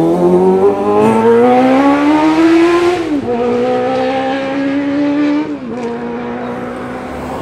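A motor vehicle's engine accelerating through the gears: its pitch climbs steadily, drops suddenly at a gear change about three seconds in, climbs gently again and drops at a second shift near six seconds, growing fainter as it pulls away.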